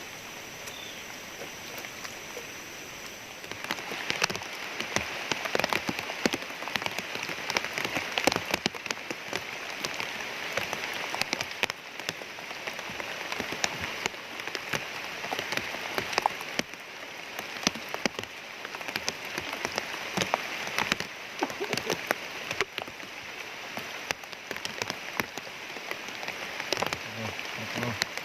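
Rain starting to fall about three and a half seconds in and keeping on as a dense, steady patter of drops.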